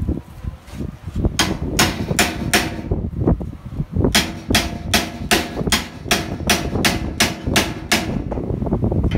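A hammer striking a steel crowbar wedged into the door seam of a safe, driving it in to pry against the bolt: sharp metal-on-metal clangs with a brief ring. Four blows, a short pause, then a steady run of about ten more, roughly two and a half a second.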